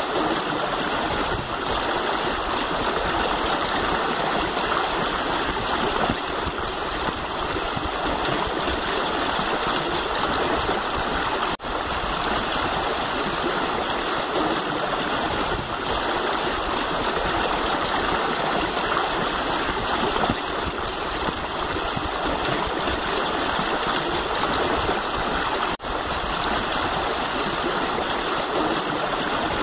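Shallow stream rushing steadily over rocks, with two momentary dropouts.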